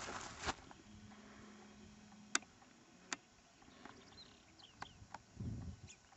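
Faint outdoor ambience in an open field. A rustling noise stops about half a second in, two sharp clicks follow around the middle, then a few faint high chirps and a brief low rumble near the end.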